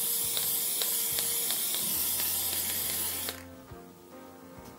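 Aerosol spray-paint can spraying in one long, steady hiss that cuts off about three seconds in.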